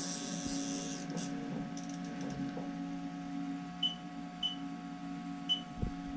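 Haas TL-1 CNC lathe standing powered up, its machine hum steady with several tones, while the tool turret is wound over by hand. A hiss fades out about a second in, three short high-pitched chirps come in the second half, and a dull thump comes near the end.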